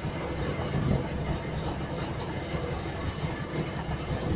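Boat engine running steadily, a low rumble with wind and water noise over it.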